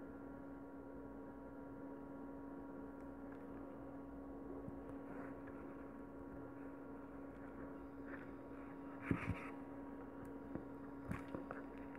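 Steady low electrical hum, with a few faint clicks and taps in the last few seconds from handling the pearl beads and needle.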